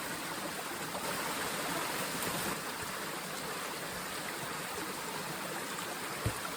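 A steady rush of running water, like a stream, with one brief low thump near the end.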